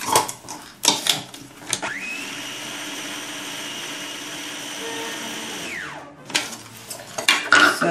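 Electric blender blending pesto sauce thinned with pasta cooking water. The motor spins up about two seconds in, runs steadily for about four seconds, then winds down, with knocks before and after.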